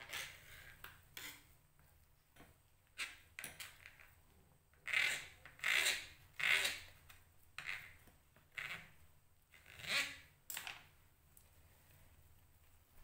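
Kitchen knife slicing raw peeled potato into long strips on a plastic cutting board: about a dozen separate short cuts, the loudest ones in the middle.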